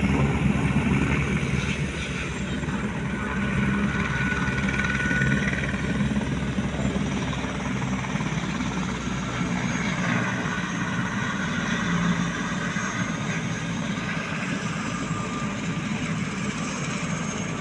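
Helicopter running on the ground with its main rotor turning: a fast, even rotor beat over a steady engine whine. The low beat weakens about ten seconds in.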